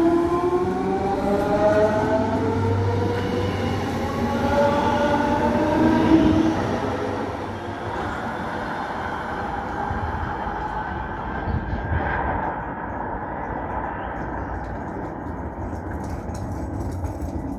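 Bombardier Talent 2 electric multiple unit pulling away: several whining tones from its traction drive climb steadily in pitch as it accelerates, then give way to a rolling rumble whose hiss fades as the train moves off.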